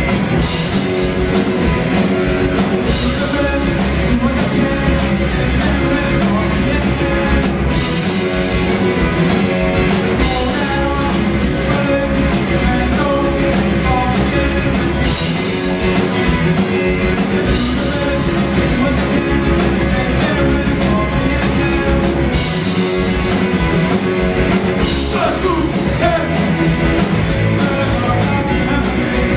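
Live rock band playing a fast, loud song: guitar and bass over steadily pounding drums, with a singing voice.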